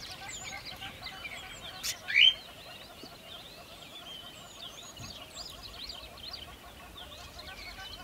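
Caged pet parrots chattering and chirping continuously, many small overlapping tweets, with one loud rising squawk about two seconds in.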